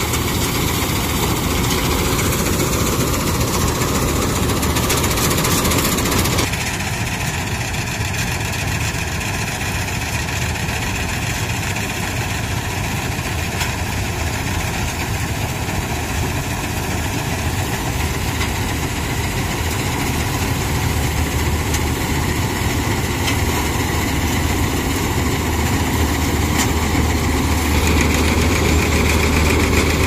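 Combine harvester's engine and threshing machinery running steadily under load while cutting crop. The sound shifts abruptly about six seconds in, and a deeper hum grows louder near the end.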